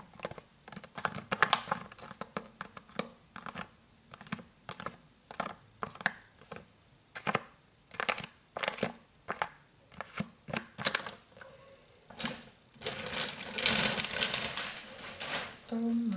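Fingernails scratching and tapping a plastic stand-up refill pouch of liquid hand soap, in quick, irregular strokes. About three-quarters of the way through, the separate strokes give way to a denser, continuous rustling of the packaging being handled.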